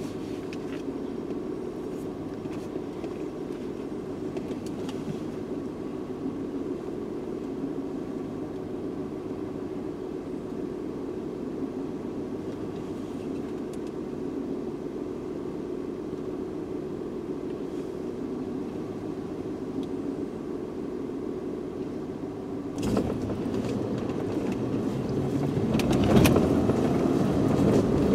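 Car engine idling with a steady hum. Near the end the engine picks up and the car pulls away along a dirt road, the engine and road noise growing louder.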